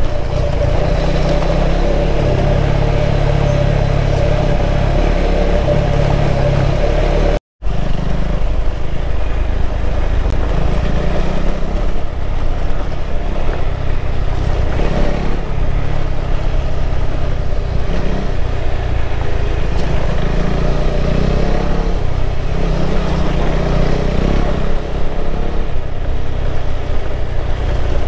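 KTM 390 Adventure's single-cylinder engine running at a steady, low road speed on a dirt track. The sound cuts out for a moment about seven seconds in, then resumes.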